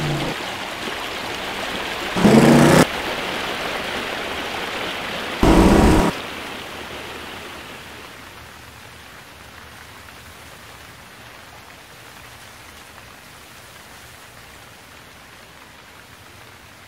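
Small forest stream rushing over rocks, a steady watery hiss that falls much quieter from about seven seconds in. Three short loud bursts with a pitched edge cut in over it: at the very start, between two and three seconds in, and around five and a half seconds.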